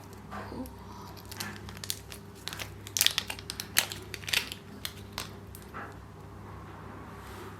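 Packaging crinkling and rustling in the hands as a piece of jewellery is unwrapped: a run of short crackles, busiest and loudest about three to four and a half seconds in, over a steady low hum.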